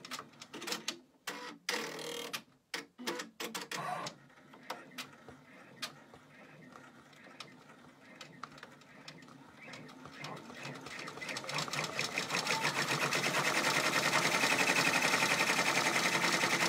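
Brother PR655 six-needle embroidery machine stitching small dots: irregular clicks and short spurts of stitching at first, then from about ten seconds in it settles into a fast, even stitching rhythm that grows louder and holds steady.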